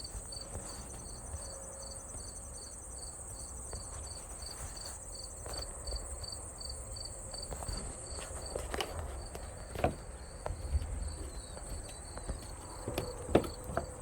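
Insects calling: a steady high-pitched trill with a cricket chirping regularly, about two or three chirps a second. A few sharp knocks sound about ten seconds in and near the end, with a low rumble of wind underneath.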